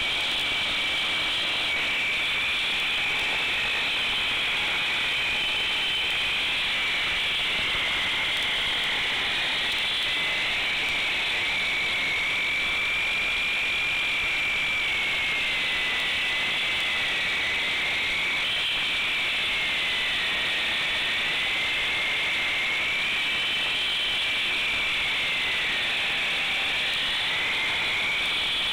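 Handheld circular concrete saw cutting a groove in a concrete slab: a steady high motor whine over the grinding noise of the blade. Its pitch sags and recovers several times in the second half as the blade is pushed into the cut.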